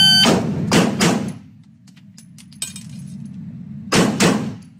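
An electronic shot timer beeps, then a Glock pistol fires quick pairs of shots, the shots in each pair about a quarter second apart. One pair comes about a second in and the next about three seconds later: an accelerated 'doubles' trigger press drill.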